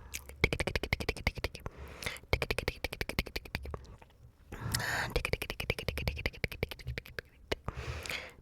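ASMR mouth sounds: rapid tongue and lip clicks and pops, several a second, with a longer breathy sound about five seconds in.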